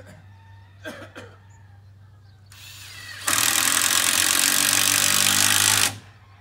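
Handheld power drill/driver running for about three seconds against the wooden shed framing: it starts softly, becomes loud and even, then cuts off suddenly. Two sharp knocks come just before, about a second in.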